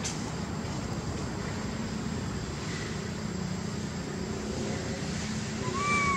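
Steady low background rumble. Near the end, a baby long-tailed macaque gives one thin, high cry that rises and then holds for under a second.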